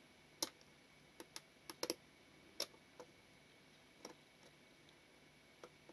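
Faint, irregular small metallic clicks and ticks from steel tweezers working a small spring and parts inside an opened Mamiya-Sekor leaf shutter, about ten in all, a few in quick pairs about two seconds in.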